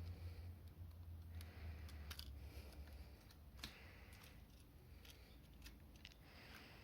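Faint, scattered light clicks and small rustles of small plastic items being handled, over a low hum that fades away in the first few seconds.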